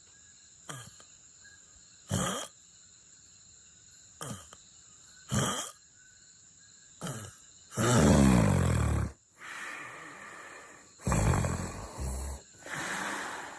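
A person snoring in sleep: short snorting breaths every second or two, then, from about eight seconds in, longer and louder snores, the first of them the loudest.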